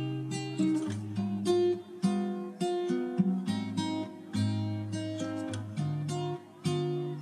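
Background music: acoustic guitar plucking a melody, a new note every half second or so.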